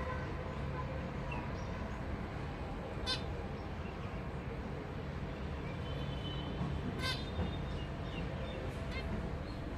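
Zebra finches giving two short calls, one about three seconds in and one about seven seconds in, with a few fainter chirps between, over a steady low background rumble.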